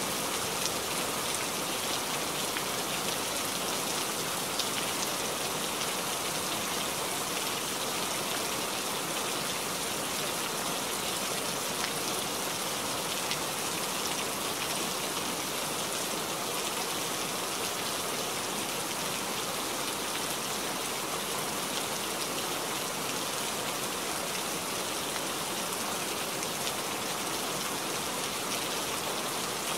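Steady rain falling: an even hiss dotted with countless small drop ticks, holding the same level throughout.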